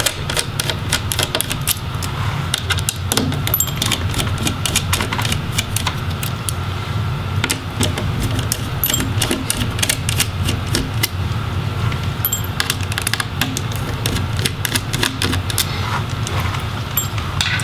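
Many small clicks and taps of hands and a screwdriver working on a laptop's display assembly while the LCD panel is being freed, over a steady low hum.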